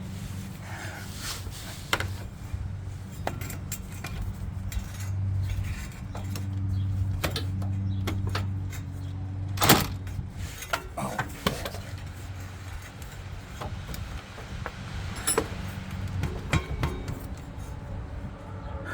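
Hand tools and bolts clinking and knocking against metal under a pickup's bed, the scattered clicks of wrenching on the factory bolts that hold a bed step, with one sharp knock about ten seconds in. A steady low hum runs underneath.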